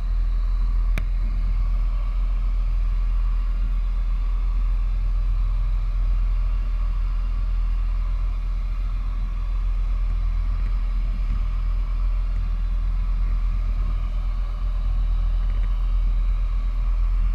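Motor yacht's engines running at slow speed, a steady low rumble.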